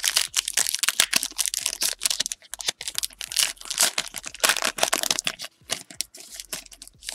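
A 2017-18 Panini Prestige foil card-pack wrapper being torn open and handled: dense crinkling and crackling of the foil, thinning out after about five and a half seconds.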